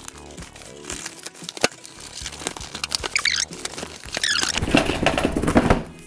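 A gimbal's retail packaging being handled and opened: rustling and squeaking with scattered clicks, and a louder stretch of scraping near the end.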